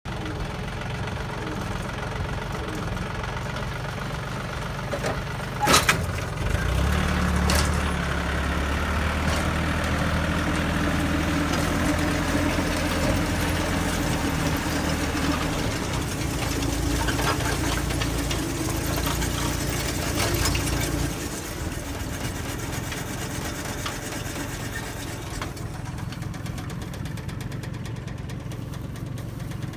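Tractor engine running while it drives a PTO-powered core aerator, with a few sharp knocks about six seconds in. The running gets louder and steadier from then until about two-thirds of the way through, then eases to a lower level.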